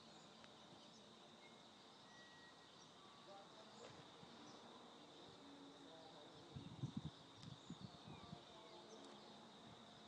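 Near silence: a faint steady high insect drone, with a few soft low thumps about two thirds of the way through.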